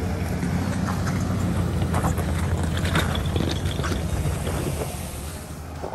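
Jeep Wrangler's engine running at low revs as it crawls over a rock slab, with a few short crunches and knocks from the tyres on the rock. The engine fades near the end as the Jeep pulls away.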